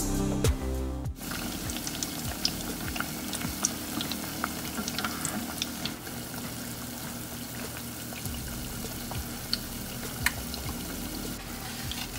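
Battered Oreos deep-frying in hot canola oil in a saucepan: a steady sizzle with many small, scattered crackles and pops. Background music plays over the first second, then drops away.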